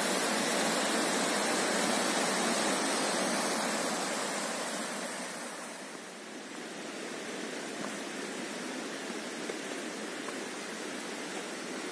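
Steady rush of a mountain creek cascading over rocks, loudest at first and fading to a lower, steadier level about halfway through.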